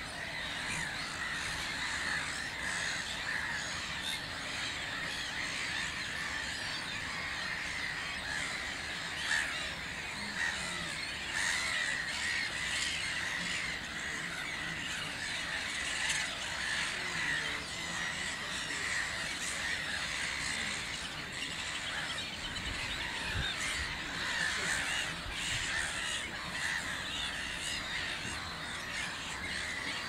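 A black-headed gull colony calling: a dense chorus of many overlapping calls, steady in level.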